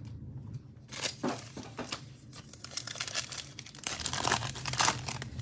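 A foil trading-card pack being torn open by hand and crinkled, heard as a run of short crackly tearing sounds, loudest near the end, with some handling of the opened cardboard box.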